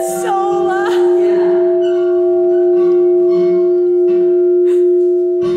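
Large hanging mission bell ringing on after being struck: a strong steady low tone with higher overtones that holds without fading.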